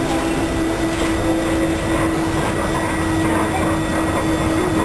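Inside a SEPTA Silverliner electric commuter railcar under way: the steady rumble of the car running on the rails, with a hum held on one steady pitch.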